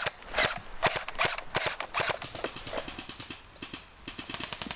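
Airsoft guns firing: a string of sharp single shots a little under half a second apart, then a quicker, fainter run of clicks from about halfway through.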